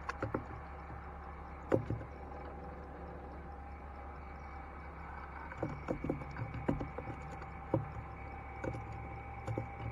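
Fishing net being hauled by hand over the side of a small wooden boat: scattered knocks and wet splashes, one sharp one about two seconds in and a busier run in the second half, over a steady low hum.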